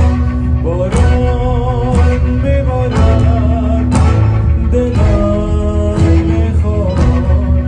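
Live band playing a song: a male voice singing over accordion, electric and acoustic guitars, double bass and drums, with a strong beat about once a second.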